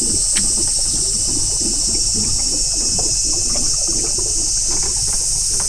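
A steady, high-pitched drone of a summer insect chorus, with water lapping and trickling softly underneath.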